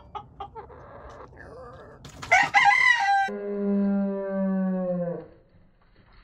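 A rooster crows once, starting about two seconds in: a short harsh opening, then a long held note that sags at the end. Faint clucks come before it.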